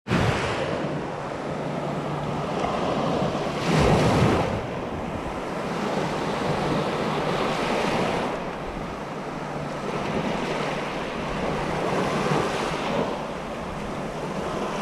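Small surf breaking and washing up over the sand at the water's edge. The sound swells and eases in surges every few seconds, the biggest about four seconds in.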